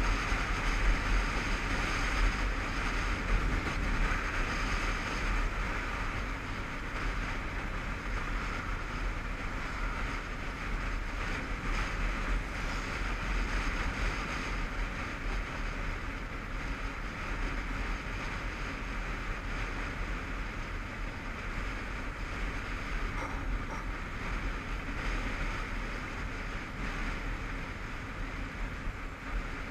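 Honda CBF500 motorcycle's parallel-twin engine running steadily at road speed, heard from the rider's helmet camera under a constant rush of wind on the microphone.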